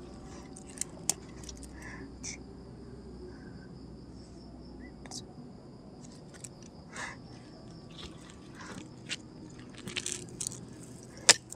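Scattered short scratching strokes of drawing on paper held on a clipboard, with a few light clicks and one sharp click near the end, over a steady high chirring of night insects.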